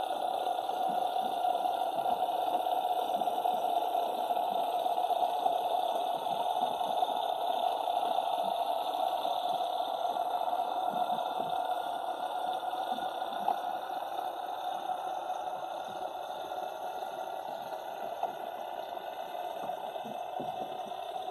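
Underwater ambient noise as heard by a submerged action camera resting on the sea floor: a steady muffled hiss with faint, irregular low crackles.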